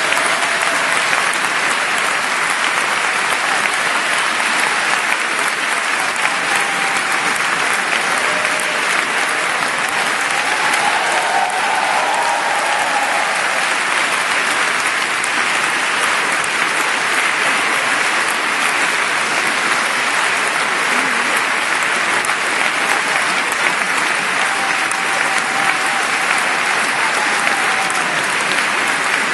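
Applause from a concert audience, joined by the choir clapping on stage: dense, even clapping that holds at a steady level throughout, with a few faint voices calling out within it.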